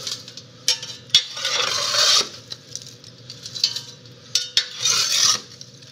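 Small metal ash shovel digging and scraping in a wood stove's firebox, with sharp metal clinks. Ash and charcoal pour and sift into a perforated steel grill skillet with a rushing hiss, about a second and a half in and again near the end.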